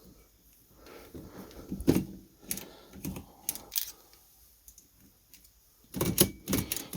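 The mechanism of a 1919 Molle No. 3 typewriter clicking and clacking as it is worked by hand: a few scattered clicks, then a quick run of clicks near the end.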